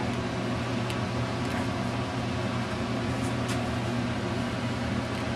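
Steady low mechanical hum with a few faint light ticks.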